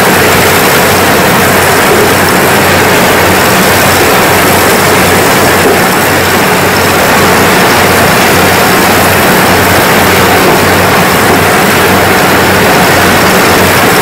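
Kubota DC-105X combine harvester running steadily under load while its corn header cuts and feeds dry corn stalks. A steady low engine hum sits under a loud, dense mechanical rush that does not let up.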